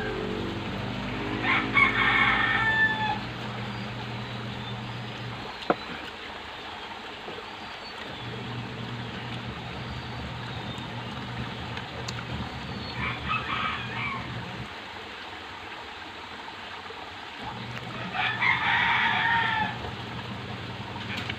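A rooster crowing three times: about a second in, around the middle (shorter), and near the end. A steady low hum runs underneath, and there is a single sharp click about six seconds in.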